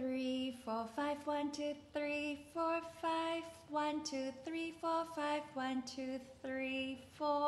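A woman singing a vocal warm-up exercise, counting the numbers one to five on short sung notes to a repeating melody, starting the cycle from four. The notes come a few a second, each held at a steady pitch.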